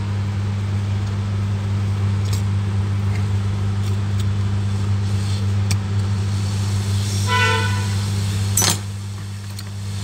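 Hot-air rework station blowing steadily on a phone motherboard, a constant hum and airy hiss, while a small coil (inductor) is heated to desolder it. A short beep sounds about seven seconds in, and after a click near the end the hiss of the airflow drops quieter.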